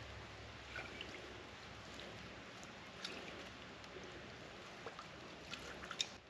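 Faint trickling and dripping of swamp water as a sample jar is dipped and filled at the water's edge, with scattered light clicks and a sharper click near the end.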